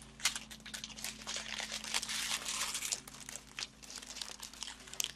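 Small plastic bags of diamond painting drills crinkling as they are picked up and handled, a run of light, irregular crackles.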